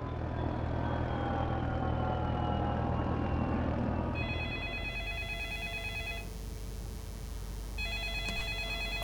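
A steady low rumble with a slowly falling whine, then a telephone ringing twice, each warbling ring about two seconds long, with a gap of about a second and a half between them.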